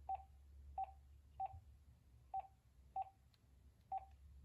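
Six short key-press beeps from an AT&T (VTech) E2801 2.4 GHz cordless phone handset, all on the same pitch and spaced about half a second to a second apart. They sound like they are echoing, because the handset plays its regular keytone from one speaker and an invalid-button beep from the other.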